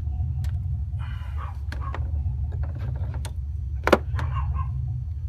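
Small metal parts being handled, a few light clicks and one sharp metallic clink about four seconds in, over a steady low rumble.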